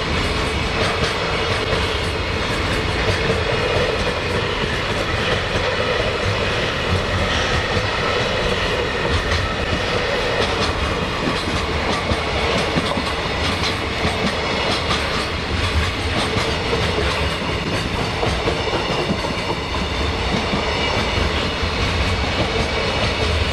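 JR Freight container train of Koki flat wagons rolling past at steady speed, wheels clacking over the rail joints.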